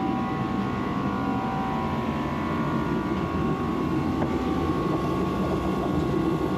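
Massey Ferguson 4707 tractor's diesel engine running steadily, having started after being warmed with a shop heater against below-zero cold.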